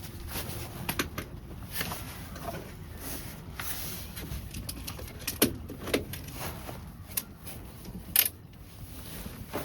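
Irregular light clicks, knocks and rustling, the sounds of camping gear being handled, with a few sharper knocks about five and a half, six and eight seconds in.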